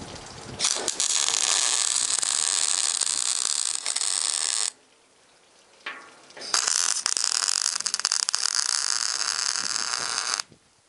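Electric arc welder laying weld on a steel snow pusher blade that is coming apart: a steady crackling hiss in two runs of about four seconds each, stopping for about two seconds in between.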